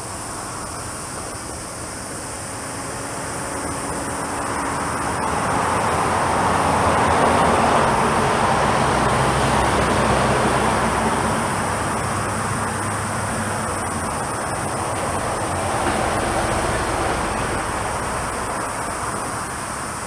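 Jet engine noise from a McDonnell Douglas MD-11F trijet rolling along the runway. It swells to a peak a few seconds in and then slowly eases off.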